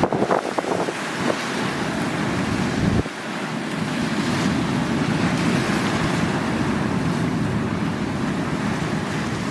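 Sea waves washing on the shore, with wind buffeting the microphone; the surf surges, drops off suddenly about three seconds in, then builds again and holds.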